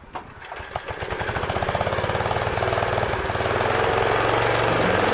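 The 11-horsepower engine of a homemade band sawmill starting up, its uneven first firings settling into a steady run that gets louder over the first few seconds as it comes up to speed.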